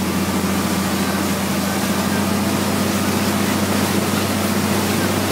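Motorboat engine running steadily under way with a constant low drone, over the rush of churning wake water.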